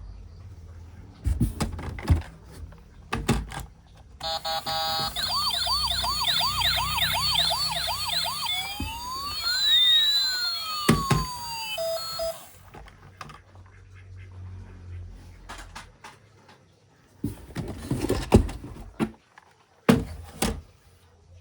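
Battery-powered toy emergency vehicle's electronic siren, lasting about eight seconds: a few short beeps, then a fast wailing yelp about three times a second, then slower rising and falling sweeps, and it cuts off suddenly. Plastic toys knock and clatter before and after it.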